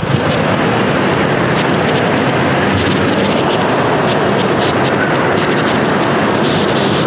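Strong storm wind and heavy rain: a loud, steady rushing noise.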